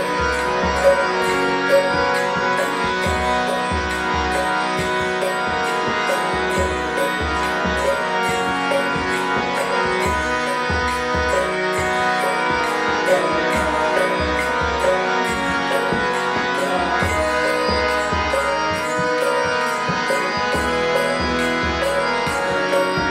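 Kirtan music: a harmonium's steady held chords over a regular beat of hand drum and small hand cymbals.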